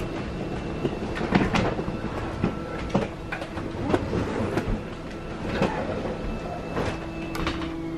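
Fifth-wheel RV's electric slide-out room moving out under its motor: a steady mechanical drone with repeated clunks and knocks as the room travels, settling near the end.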